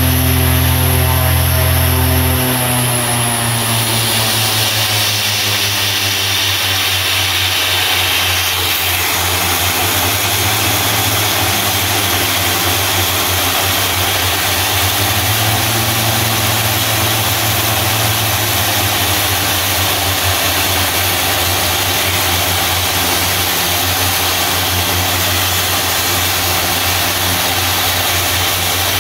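OV-10 Bronco's Garrett T76 turboprop engine running on the ground with its propeller turning, during an engine trim run. A few seconds in, its whine and hum drop in pitch, then it runs steadily.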